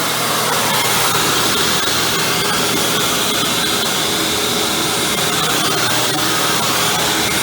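Hoover WindTunnel Supreme upright vacuum running steadily while vacuuming, its motor giving a constant whine, with faint scattered clicks.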